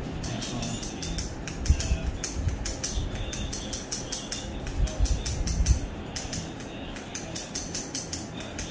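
Barber's scissors snipping rapidly through hair, a steady run of about five crisp snips a second, with a few dull low bumps in between.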